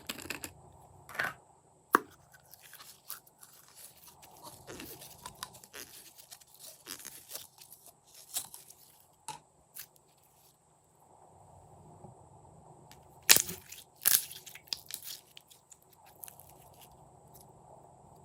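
Glossy slime being squished and mixed by hand, crackling and popping in irregular bursts, with two loudest sharp snaps about 13 and 14 seconds in.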